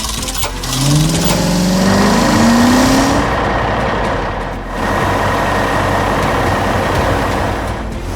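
Heavy truck engine running, revving up with a rising whine between about one and three seconds in, over a steady rumble.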